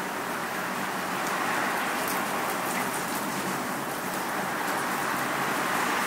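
Windy rain shower: a steady hiss of falling rain, swelling slightly as the wind picks up.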